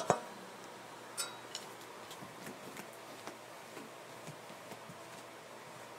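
Quiet room noise with scattered faint clicks and taps, and a sharper double knock right at the start.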